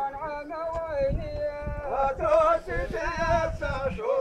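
A man singing a folk song solo in a high voice, the notes held long and bent up and down with ornaments.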